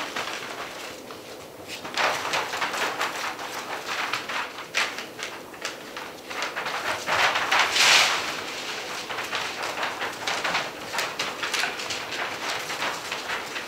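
Gordon Setter puppies scrambling and play-fighting on the floor: quick clicks and scratches of claws with scuffling and rustling. The noise swells about two seconds in and is busiest about halfway through.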